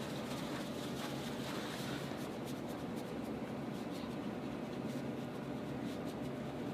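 Hands working a patient's foot and toes on a treatment table: soft scratchy rubbing with a few faint ticks over steady room hum.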